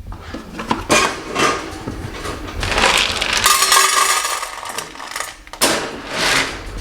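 Dry pet food kibble rattling and clinking against bowls, in a run of short clatters that thickens in the middle.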